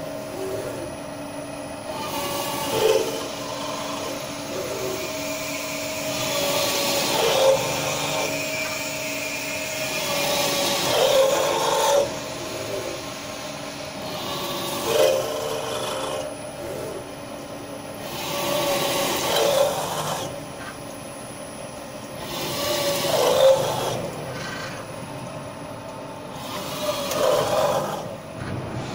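Steel brake shoe drilling machine running, its drill spindles cutting holes in a steel brake shoe over a steady machine hum. The cutting noise swells about every four seconds.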